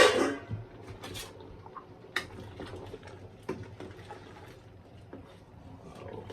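Ingredients tipped into a pot of soup with a splash right at the start. After that come a few scattered light knocks of utensils against the pot, over low kitchen hum.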